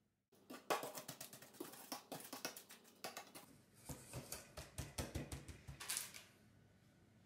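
Fingers pressing and patting a crumb base into a metal springform tin: a quick, irregular run of soft crackling taps and clicks that dies down near the end.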